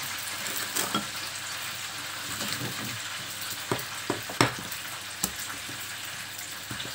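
Belyashi (meat-filled yeast-dough pies) frying in oil, a steady sizzle, with a few short knocks from a wooden rolling pin on the table.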